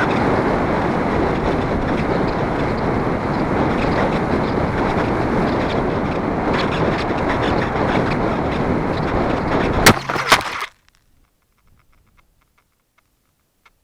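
Onboard audio of a small electric RC plane in flight: a steady rushing of wind and propeller noise. About ten seconds in come two sharp knocks, typical of the plane touching down, and the noise cuts off abruptly.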